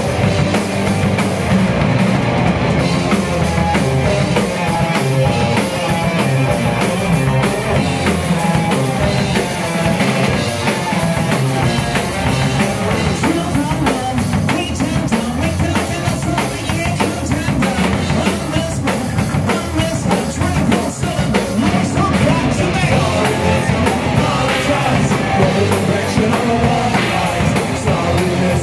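Live rock band playing loudly: electric guitars, bass guitar and drum kit, with a singer singing into a handheld microphone.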